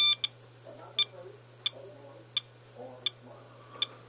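SOEKS radiation dosimeter beeping at irregular intervals, about seven short high electronic beeps, each one counting a detected particle at an elevated radiation reading. One longer, louder beep comes at the start.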